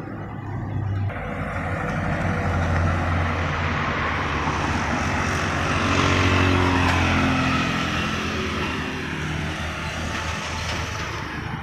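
Cars passing close by on a road: engine drone and tyre noise swell to a peak about six seconds in, then the engine note drops in pitch and fades as they pull away.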